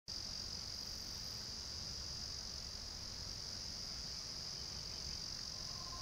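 Insects trilling steadily in one continuous high-pitched drone, with a faint low rumble beneath.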